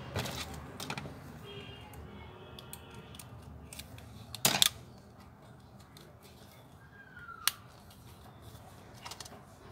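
Clicks and snaps from handling a Nokia TA-1030 phone's circuit board and plastic frame as it is fitted back into the housing: a few light clicks, a loud double snap about four and a half seconds in, and another sharp click near the end.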